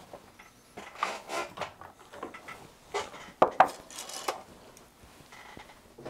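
Metal tools and small parts clinking and knocking on a workbench as they are handled, in irregular clatters, the sharpest two knocks about three and a half seconds in.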